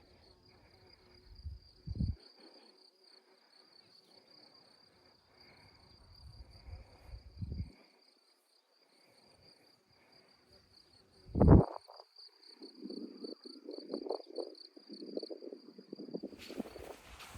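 Insects chirping in a steady, fast-pulsing high drone, with low thumps about two and seven seconds in and a loud thump past the middle, followed by rustling. Near the end the chirping gives way to a broad hiss.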